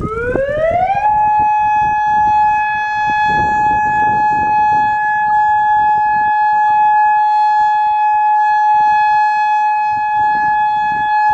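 Campus emergency alert system's outdoor warning siren sounding a test: it winds up in pitch over about a second, then holds one steady, loud tone.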